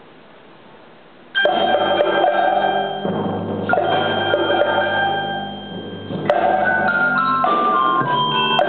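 Percussion ensemble of marimbas, xylophones and timpani starting to play after a short hush. Loud held chords come in about a second and a half in and are struck again twice, then a run of quick stepping melody notes near the end.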